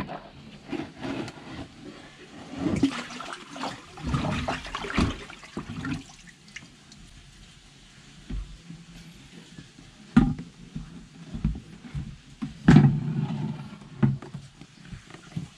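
Water splashing and sloshing in a plastic tub, in uneven bursts. There are a couple of sharper splashes in the second half, the loudest about three seconds before the end.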